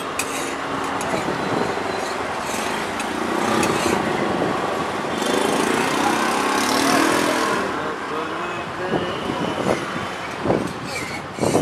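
Busy street-stall ambience: a steady din of traffic and crowd noise with background voices, and a few sharp knocks near the end.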